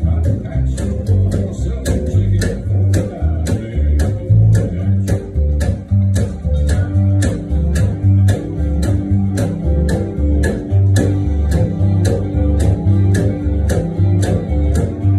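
Acoustic upright bass plucked in a steady country bass line, its low notes changing in an even rhythm, with guitar and sharp regular clicks of a beat in the mix.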